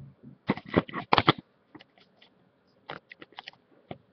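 Handling noise: a quick run of clicks and knocks, loudest between about half a second and a second and a half in, then a few lighter taps as the webcam is moved.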